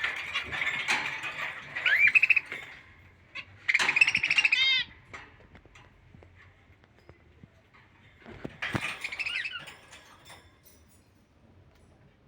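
Budgerigars chattering and chirping in three bursts of warbling calls, the last about nine seconds in, with quieter gaps between.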